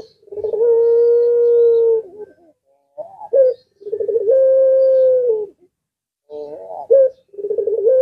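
Puter pelung dove, a domestic collared dove bred for its call, cooing three times. Each call opens with a quick stuttering run of notes and settles into one long drawn-out steady coo that drops slightly at its end.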